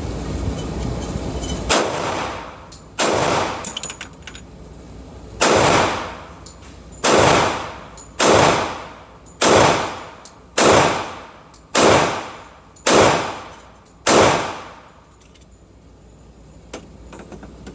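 Sig Sauer P227 Carry .45 ACP pistol firing ten shots, each with a short echo. The first two come about a second apart, then a pause, then the rest at roughly one a second.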